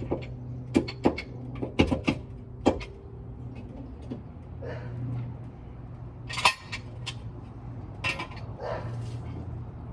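Scattered sharp clinks and knocks, as of tools or parts being handled, over a steady low hum. The loudest knock comes about six and a half seconds in.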